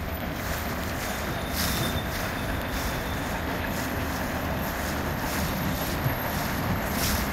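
Steady rushing noise of a boat under way into the wind, with a long container freight train rolling past along the shore.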